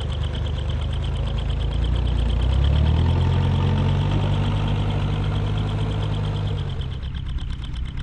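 Bolinder-Munktell BM-Victor tractor engine running steadily under load, pulling a binder through barley. It grows louder a couple of seconds in and eases off near the end.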